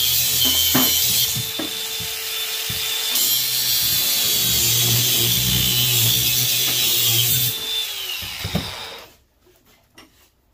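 DeWalt cordless angle grinder cutting metal, a steady grinding whine. About eight seconds in it is switched off and spins down, followed by a few light clicks as it is set down.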